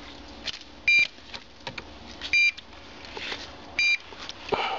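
NPR low-frequency locator beeping three times, short high beeps about one and a half seconds apart, as it picks up the pulsing magnetic field of a PNT-00 pipeline-pig transmitter sealed inside a pressurised steel hydrotest stand: the sign that the transmitter is still working under test pressure. Faint clicks between the beeps and a knock near the end.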